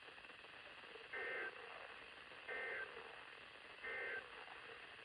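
NOAA Weather Radio EAS end-of-message data burst: three short, identical bursts of SAME digital tones about 1.4 seconds apart over faint radio hiss, the code that marks the end of an alert.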